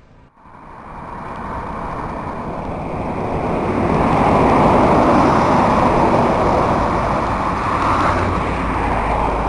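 Loud rushing wind and road noise over the microphone of a camera moving along the road. It builds over the first few seconds, then holds steady.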